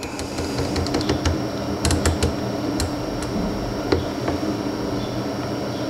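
Irregular light clicks and taps, with a cluster about two seconds in, over a steady faint high-pitched whine and a low hum.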